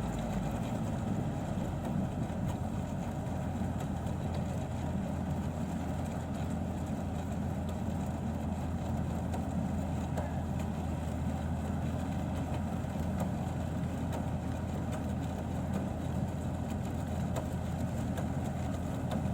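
Combine harvester engine running steadily, with a low, even drone.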